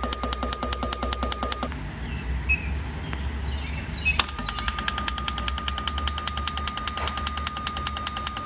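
A running car engine with a rapid, even mechanical ticking, about eight ticks a second, over a steady high whine and a low hum. The ticking breaks off for about two seconds shortly after the start, then resumes.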